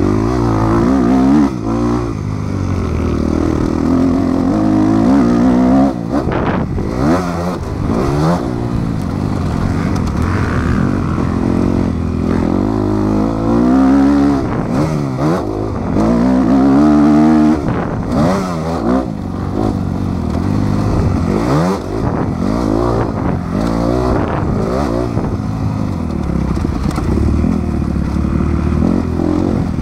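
A motocross bike's engine, heard from the rider's own helmet, revving hard through the race: its pitch rises and falls over and over as it accelerates and backs off over the jumps and turns.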